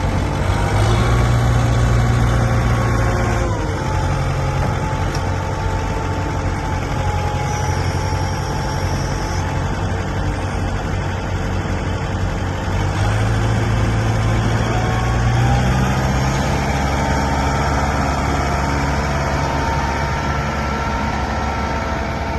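Kubota M9540 tractor's four-cylinder diesel engine running, revved up briefly near the start and again about two-thirds of the way through, then settling back to a lower speed each time.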